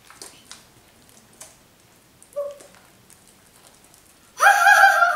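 Soft wet squelches of homemade slime being squeezed and kneaded by hand. About four seconds in, a loud high-pitched cry, held about a second and dropping in pitch at the end, is the loudest sound.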